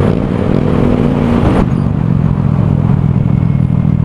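Honda Click scooter's single-cylinder engine running under way through a loud aftermarket Akrapovic muffler with the dB killer baffle removed, giving a steady low exhaust note. A louder rush of noise sits over it for the first second and a half, then cuts off suddenly.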